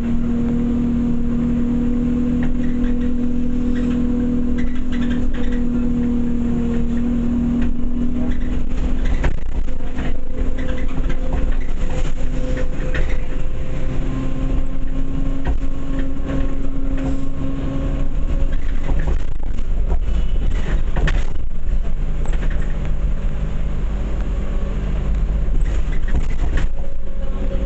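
Bus cabin noise on the move: the engine and drivetrain give a constant low rumble with a steady hum that shifts pitch a few times as the bus changes speed. Knocks and rattles from the cabin fittings come and go, thickest about two-thirds of the way through.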